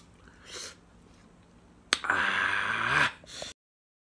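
A man's faint mouth clicks as he licks his fingers after eating, then a loud breathy sigh lasting about a second. After it, the sound cuts off suddenly.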